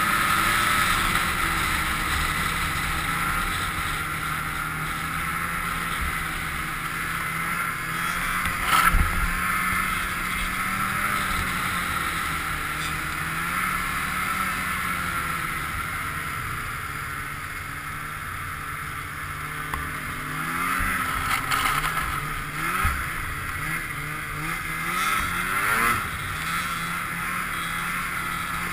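Polaris snowmobile engine running under way with the rush of wind and track noise on the helmet camera; its pitch rises and falls with the throttle in the later part. A sharp thud about nine seconds in, as the sled hits a bump.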